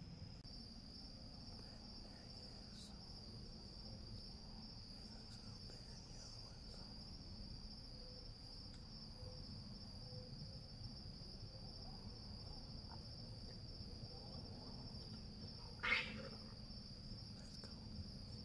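Insects trilling steadily at a high pitch, faint, with one brief loud sound near the end.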